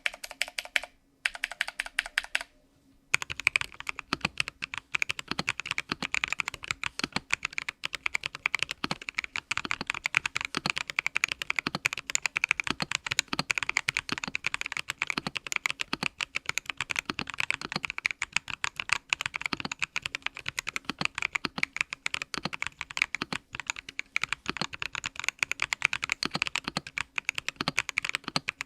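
Vortex GT-6 mechanical keyboard with lubed and filmed Boba U4T tactile switches being typed on quickly and continuously, a rapid patter of keystrokes. A short pause comes just before three seconds in.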